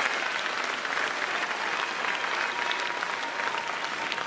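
Spectator crowd in a sports hall applauding after a rally, a dense patter of many hands clapping.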